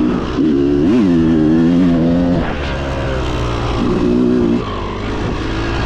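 Off-road vehicle engine running and revving. The pitch climbs and falls in a rev about a second in, eases off, then picks up again for a moment past the middle, over a steady low rumble.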